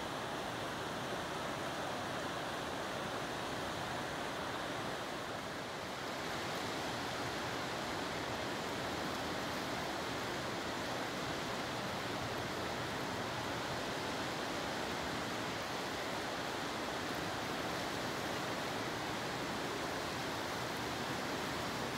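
Steady rushing of whitewater rapids on the Potomac River.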